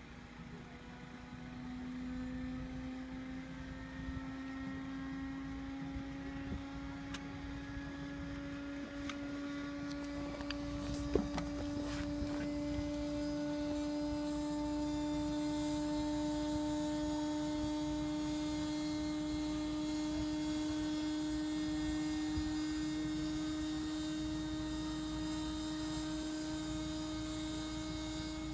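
Antonov An-2's electric inertia starter winding up its flywheel for engine start: a steady whine that climbs slowly in pitch and grows a little louder, with a faint click partway through.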